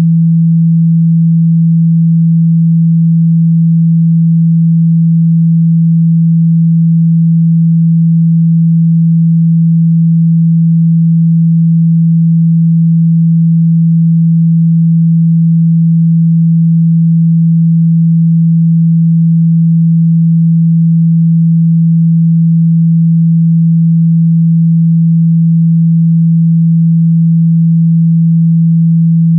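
A steady, loud, low-pitched pure sine tone, held unchanged throughout. It is a speaker-cleaning tone, played through a phone speaker so the vibration shakes water and dust out of it.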